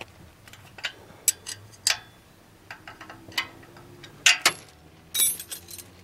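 Ratcheting box-end wrench clicking and clinking in short, irregular runs as it tightens a replacement bolt holding the loose exhaust pipe, with a quicker run of clicks near the end.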